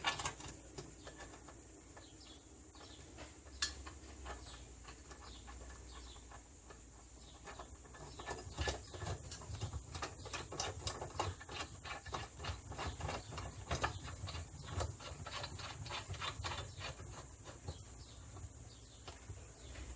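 Ratcheting wrench clicking as a nut is tightened on a bolt, a few scattered clicks at first, then quick runs of clicks from about halfway through.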